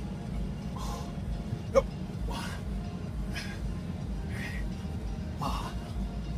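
A man breathing hard in short, rhythmic puffs, about one a second, while doing exercise reps, over a steady low rumble. One sharp click comes a little under two seconds in.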